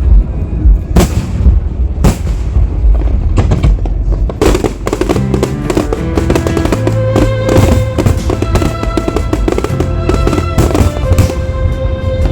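Aerial fireworks bursting: single sharp bangs about a second apart, then a dense run of bangs and crackles from about four seconds in, with music playing throughout.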